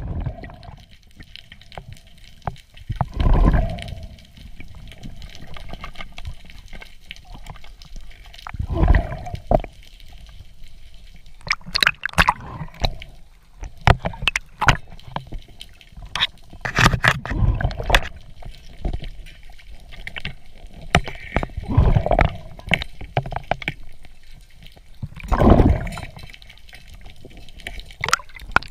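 Muffled water sounds picked up by an underwater camera: a low gurgling rush that swells up every few seconds. Sharp clicks and knocks come in the middle stretch.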